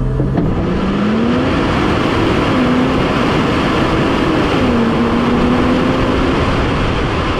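The 2020 Land Rover Defender P400's 3.0-litre turbocharged straight-six roars under full-throttle acceleration. Its note climbs, then drops about four and a half seconds in at an upshift, over a steady rush of tyres on gravel and wind.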